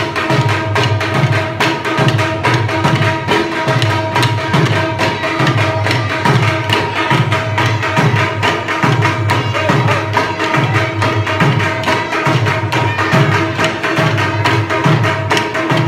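Dhol drum beaten in a steady dance rhythm, its deep bass strokes repeating about one and a half times a second, with a steady held note sounding above the drumming.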